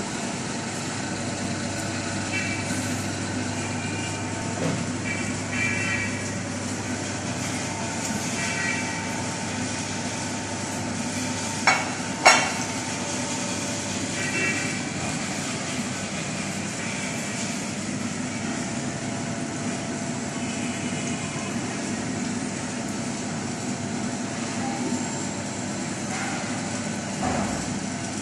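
Steady background hum and noise with faint snatches of distant voices. Two sharp clicks about half a second apart come near the middle.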